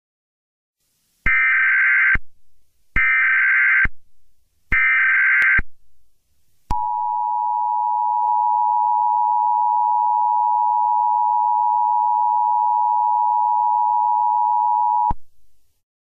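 Emergency Alert System tones: three short bursts of SAME header data, each about a second long, then the steady two-tone EAS attention signal for about eight seconds, which cuts off suddenly. Together they mark the start of an EAS alert.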